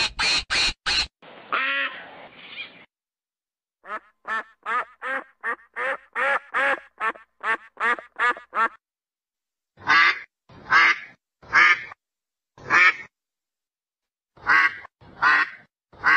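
Mallard ducks quacking: quick runs of short, harsh quacks, broken by a pause, then slower, louder single quacks spaced about a second apart.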